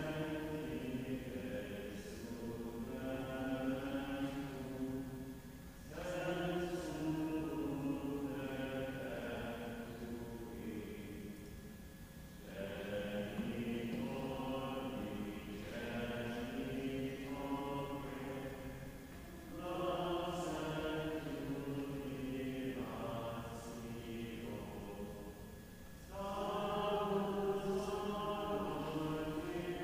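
A slow sacred chant sung in long phrases of about six to seven seconds each, with a short breath pause between phrases.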